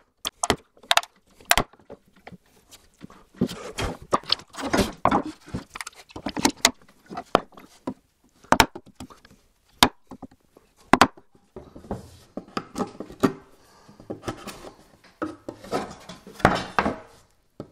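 Wooden mallet striking a bench chisel to chop a mortise in spruce: a few sharp knocks about half a second apart, then denser knocking and scraping of the chisel in the cut, and a few single strikes around the middle. Near the end, wooden clatter and rubbing as the board is shifted on the workbench.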